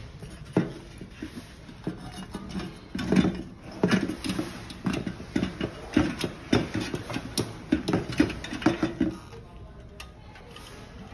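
Irregular clicks and knocks of metal parts being handled and fitted inside a sheet-metal housing while reinstalling an ignition needle, dying away about nine seconds in.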